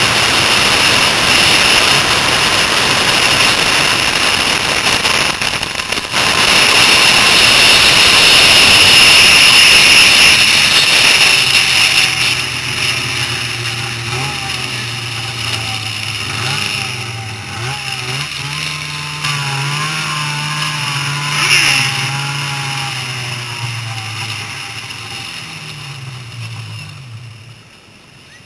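Snowmobile running at speed on an asphalt drag strip, heard from a helmet camera: a loud, even rush of engine and wind for about eleven seconds. It then drops to a lower, wavering engine note as the sled slows, fading toward the end.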